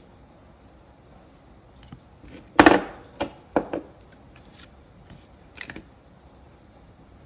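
A few knocks and clicks as a nail polish bottle and small tools are handled and set down on a tabletop, the loudest near the start. Then two quick scrapes of a scraper across a metal nail stamping plate, clearing excess polish from the engraved image.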